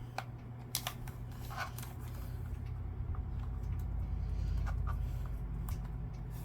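Scattered small clicks and taps of plastic controller parts and a small pry tool being handled while an Xbox One controller is opened, over a steady low hum.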